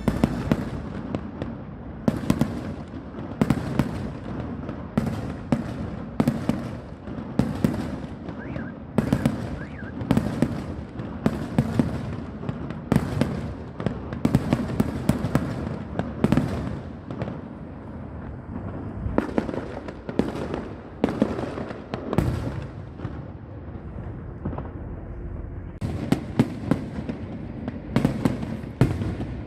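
Fireworks display: aerial shells bursting in a run of bangs about once a second, with a low rumble carrying on between them. The bangs thin out for a few seconds about three-quarters of the way through, then pick up again.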